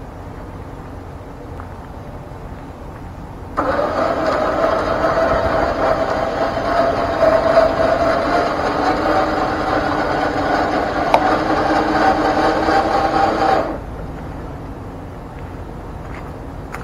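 Warn electric winch running under load for about ten seconds, a steady motor-and-gear whine that starts and stops abruptly. It is winding its cable in against the weight of the truck, which is in neutral, to pre-tension the line on the drum.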